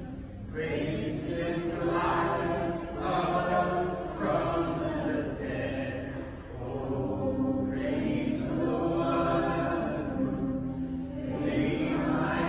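A congregation of many voices singing a slow worship song together, in long held phrases a few seconds each.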